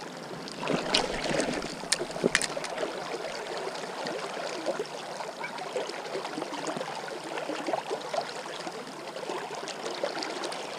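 Mountain river running fast over a stony riffle: a steady, even hiss of rushing water, with a few sharp clicks or knocks between one and two and a half seconds in.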